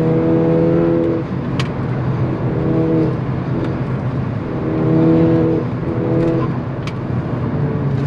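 Car engine running at steady revs while driving, its drone fading out about a second in and swelling back several times, over road noise. A few faint clicks are heard.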